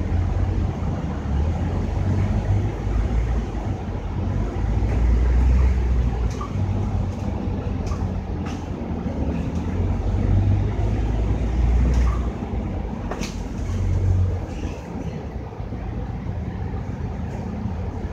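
Scania K310UD double-decker bus running under way, heard on board: its engine drones low, swelling and easing several times as it pulls and backs off, with a few sharp clicks and rattles along the way.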